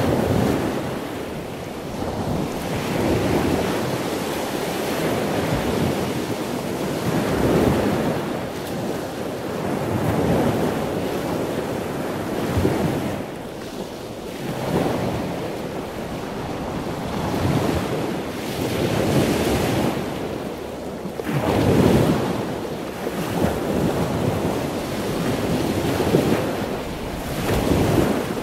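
Wind rushing over the microphone and choppy sea waves, a noisy wash that swells and fades every two to three seconds.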